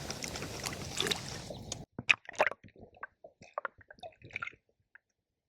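Water sloshing and dripping as a landed fish is handled at the side of the boat for release. A steady wash is followed, about two seconds in, by a run of short splashes and drips that stop about a second before the end.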